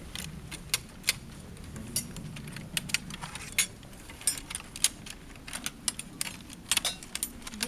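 Several soldiers fixing socket bayonets onto flintlock muskets: irregular metallic clicks and clinks of steel on steel, coming thicker near the end.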